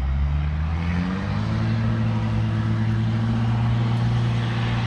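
An engine running, its pitch stepping up about a second in and then holding steady.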